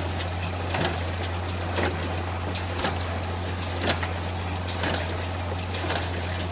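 Square hay baler running behind a tractor: a steady engine hum with the baler's plunger knocking about once a second as it packs hay into bales.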